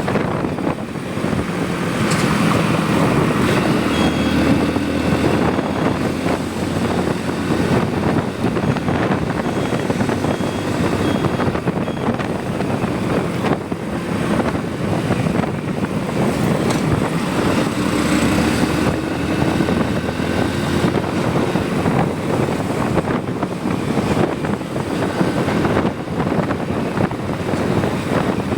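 Motorcycle on the move: the engine running steadily under continuous wind and road noise.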